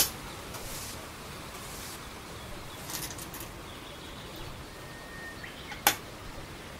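Go stones placed on a wooden Go board: two sharp clacks, one at the start and one about six seconds later, over a steady hiss.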